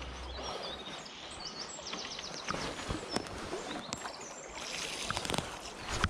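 River current flowing and lapping, a steady rush of water, with a few light clicks and knocks.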